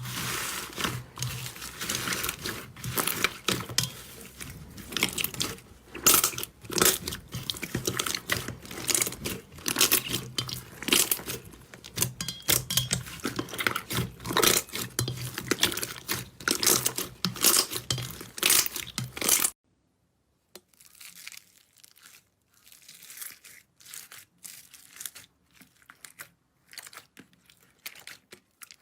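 Slime being squeezed and poked by hand, giving a dense run of sticky crackles, pops and clicks. It cuts off abruptly about twenty seconds in, and fainter, sparser crackles follow.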